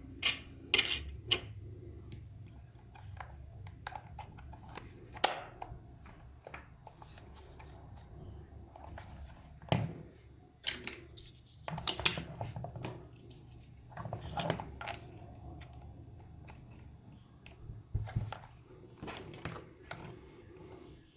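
Scattered clicks and light knocks from small objects being handled, irregular and a few seconds apart, over a faint low hum.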